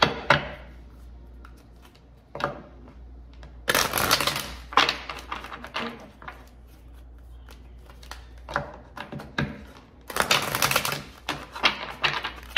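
A tarot deck being shuffled by hand: irregular bursts of cards slapping and sliding against each other, with two longer runs about four and ten seconds in.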